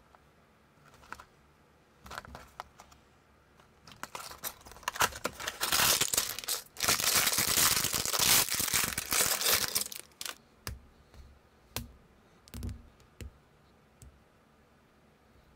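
Clear plastic parts bag crinkling and being torn open by hand, a dense crackle of about six seconds in the middle that is the loudest part. Before and after it come a few light clicks of small plastic building pieces being handled.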